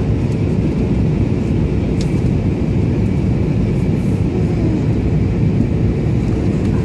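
Steady cabin noise inside an Airbus A320 on approach: engine and airflow noise as an even rush, with a faint steady high whine over it.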